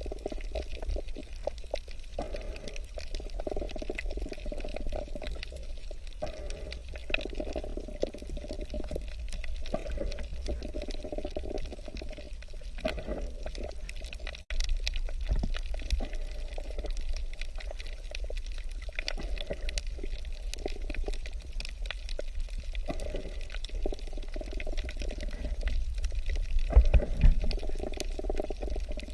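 Water bubbling and gurgling over a steady low rumble, with a brief break about halfway through.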